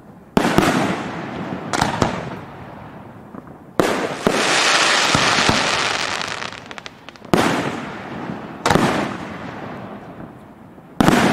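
Aerial firework shells bursting: six sharp bangs spread over the stretch, each trailing off in an echoing rumble. After the third bang, a long, dense crackling rush lasts about three seconds.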